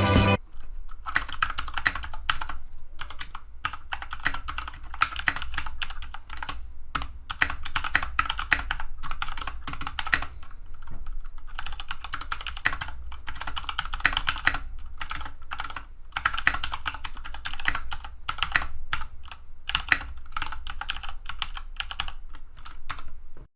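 Continuous fast typing on an Anne Pro 2 mechanical keyboard with Gateron Brown tactile switches and stock keycaps: a steady stream of key clacks, many strokes a second.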